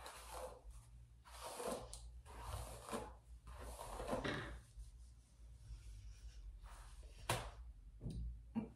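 Soft rustling swishes of hair being gathered up by hand, several in the first few seconds, then a single sharp knock about seven seconds in.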